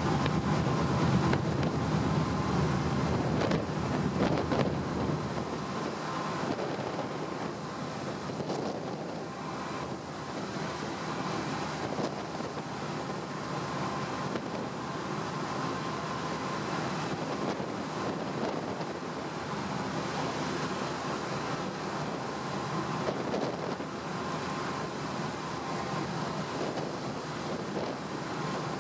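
Wind noise on the microphone over the steady rush of the sea from a car ferry underway, with heavier wind gusts in the first few seconds.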